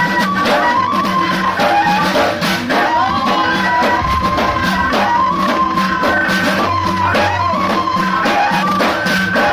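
Laalawi folk music: bendir frame drums beating a quick, steady rhythm under a wavering, ornamented melody on the gasba reed flute.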